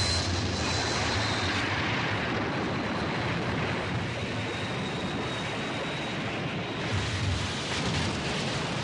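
Film sound of a wooden railway bridge being blown up: a continuous heavy rumble of the blast and falling debris that slowly eases off.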